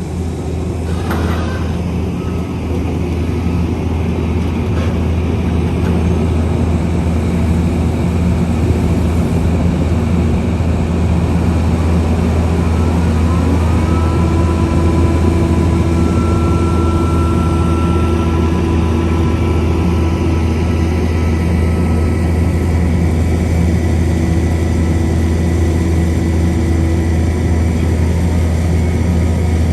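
A heavy construction machine's engine running steadily with a deep drone. About halfway through, a higher steady whine glides up and holds for some fifteen seconds.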